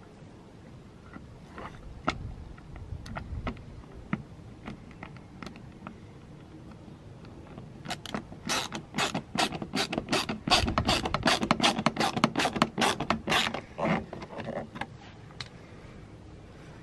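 A fast run of sharp clicks, about three or four a second for some six seconds, with a few scattered clicks before it, from hands working the plastic fog light surround back into the car's bumper.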